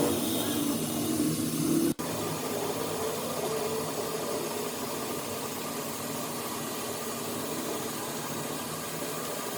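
A machine running with a steady, noisy hum, broken by a brief cut about two seconds in.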